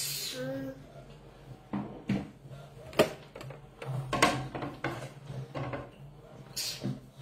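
Irregular knocks and clatter of hands, a plate and a small child moving on a tabletop, with a sharp knock about three seconds in and another about a second later.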